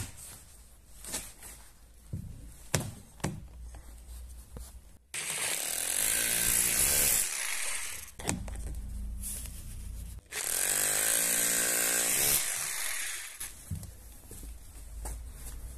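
Katana 950 W SDS+ rotary hammer with a flat chisel bit, chiselling into hardened old cement in two bursts of about two and a half seconds each, about five and ten seconds in, after a few light knocks.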